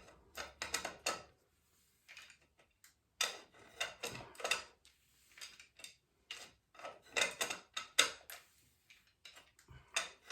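Park Tool BBT-9 bottom bracket wrench clicking and clinking against a Shimano external bottom bracket cup as the cup is screwed in. The sound comes in three short bursts of sharp metallic clicks with quiet pauses between.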